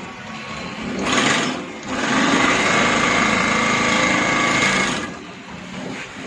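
Twin-thread bag closer sewing head stitching the top of a filled bag shut. A short burst about a second in, then the machine runs steadily at speed for about three seconds and stops.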